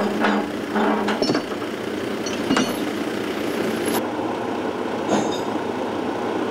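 Heavy diesel engines of a truck and mobile crane running steadily, with a few short, sharp knocks in the first three seconds and one more about five seconds in. About four seconds in, the sound changes and the high hiss drops away.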